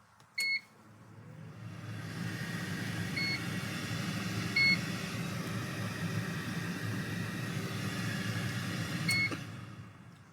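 COSORI dual air fryer giving a short electronic beep, then its fan starting up and running with a steady whir, with two more beeps along the way. A last beep comes near the end, and the fan winds down after it.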